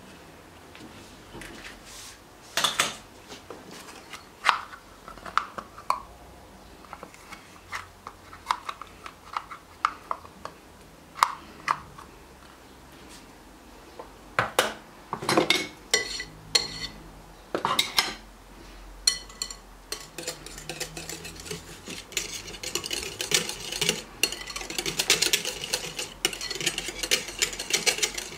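Wire whisk clinking against a glass mixing bowl as egg yolk is worked into waffle batter. It starts as scattered taps and clinks, and about two-thirds of the way in turns into fast, continuous whisking.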